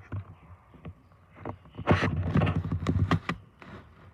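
A few separate knocks, then a quick run of knocks and rattling clatter lasting about a second and a half.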